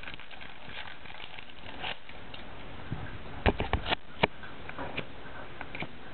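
Foil wrapper of a Yu-Gi-Oh! booster pack crinkling as it is torn open, then the trading cards being handled and flipped through. A quick run of sharp card clicks comes about three and a half seconds in.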